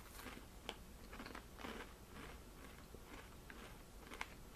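A person chewing a mouthful of Old Dutch ripple-cut potato chips: faint, irregular crunches, with one sharper crack near the end.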